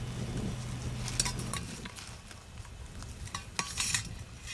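A metal cylinder scraping and clinking as it is dragged over stony grass, with several short rustles and light clinks. A low hum stops about a second and a half in.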